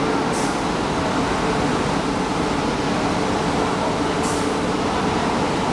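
Risense CF 350 rollover car wash machine running with a steady mechanical drone, with two short hisses, one about half a second in and one about four seconds in.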